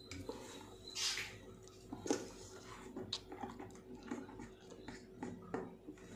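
A spoon stirring and scraping through a thick, wet mash of powdered puppy food and hot water in a bowl: irregular soft scrapes with a few sharper clinks.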